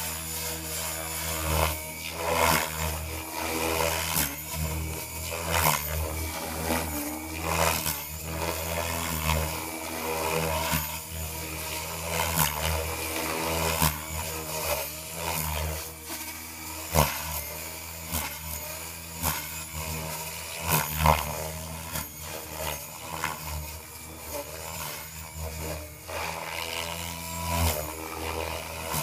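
An Agile 5.5 radio-controlled helicopter flying, its motor and rotor blades giving a steady high buzzing whine. The whine wavers in pitch, and the blade noise swells loudly every second or two as it maneuvers.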